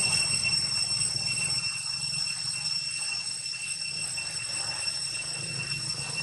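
Steady high-pitched insect drone, one unchanging tone with overtones, over a low, even rumble of outdoor background noise.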